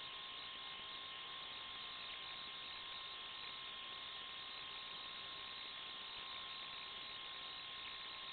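Steady, unchanging hiss of static with a thin high hum running through it: the empty audio channel of an analog FPV video receiver's recording, not the truck's motor.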